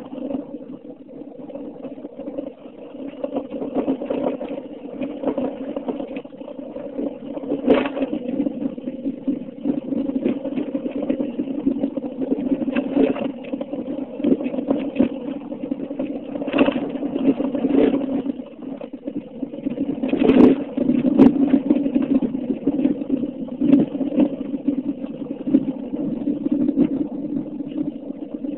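A car's engine and road noise heard from inside the cabin while driving, a steady low drone. A few brief knocks or rattles come through, the loudest about twenty seconds in.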